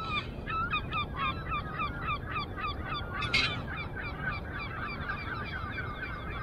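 A flock of geese honking, many short calls overlapping several times a second. A single sharp crack cuts through about three seconds in.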